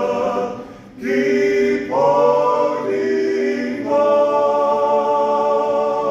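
Male a cappella gospel group singing in close harmony, unaccompanied. Short sung phrases are followed, from about four seconds in, by one long held chord: the final chord of the song.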